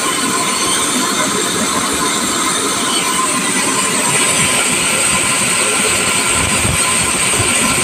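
Steam hissing out of the brass pop-off safety valve on a homemade drum steam sterilizer for mushroom spawn. The valve has opened because the pressure reached its set point, about 20 PSI. A low rumble runs underneath, and the hiss grows stronger about three to four seconds in.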